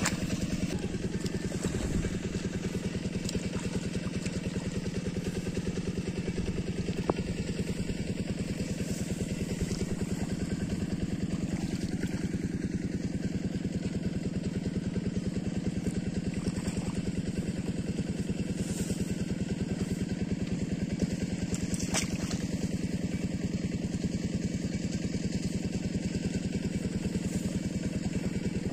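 A small engine running steadily at an even speed, with a rapid regular chugging pulse that does not change, and a couple of faint clicks over it.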